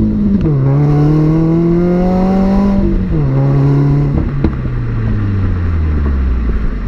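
2016 Subaru WRX's turbocharged flat-four accelerating through its ETS cat-back exhaust. The engine pitch climbs, drops sharply at upshifts about half a second and about three seconds in, and then falls steadily as the car eases off, with a sharp click at about four and a half seconds.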